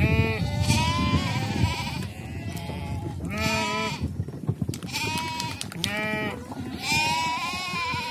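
Sheep bleating, about six wavering calls one after another, some from several animals overlapping.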